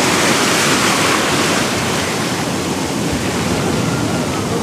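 Ocean surf: waves breaking and the foamy wash rushing through shallow water, a little louder in the first second or so.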